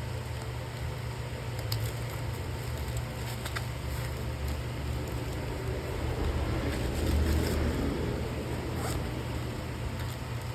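Steady low hum with a few light clicks, and a swell of rustling handling noise about six to eight seconds in.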